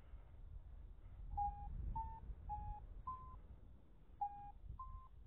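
Paragliding variometer beeping its climb tone: six short beeps, roughly two a second with a brief gap, a little higher in pitch near the end. Low wind rumble on the microphone underneath.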